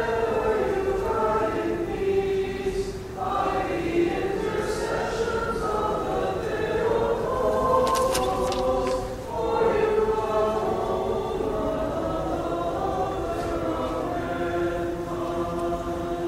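Church choir singing Greek Orthodox liturgical music in sustained chordal lines, with two brief breaks about three and nine and a half seconds in.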